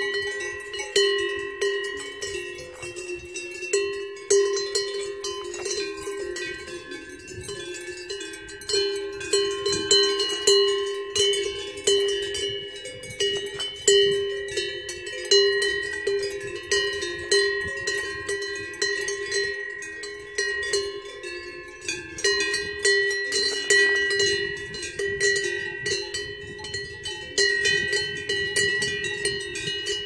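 Neck bells on several grazing cows clanking in an uneven, unbroken jangle, their ringing tones overlapping.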